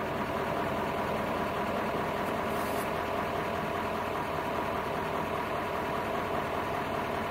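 An engine running steadily, an even drone that holds the same level throughout.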